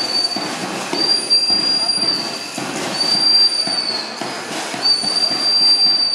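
A shrill, steady whistle blown over and over, each blast about a second long and coming about every two seconds, above the shuffle and chatter of a marching crowd.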